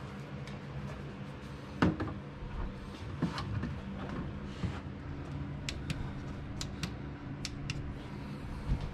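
Small air pump humming steadily as it pushes smoke through the homemade smoke tester, with scattered clicks and knocks over it. The loudest knock comes about two seconds in, and a quick run of sharp clicks follows later on.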